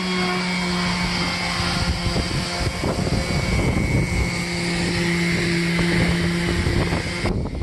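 An electric power tool runs steadily with a constant motor hum and a rough hiss while it strips old layers of paint from a boat hull. It cuts off abruptly near the end.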